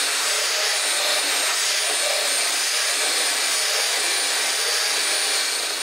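Cordless grinder with a carbide burr running at steady speed while grinding material out of the inside of an engine mount: a constant high whine over an even grinding noise.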